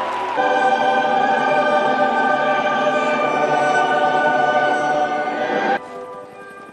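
Choir singing with accompaniment, holding long sustained chords; a fuller chord comes in about half a second in and breaks off abruptly near the end, leaving quieter music underneath.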